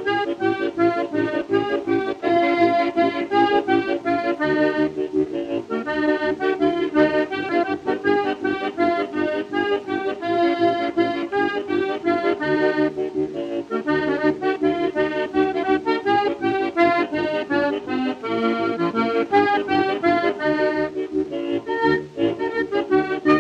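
Background music: a lively accordion tune with quick-changing notes over a steady, rhythmic bass accompaniment.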